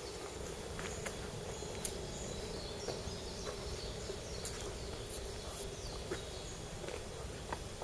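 Outdoor ambience under trees: a steady background hum with faint bird chirps, broken by a few light footsteps on a paved path.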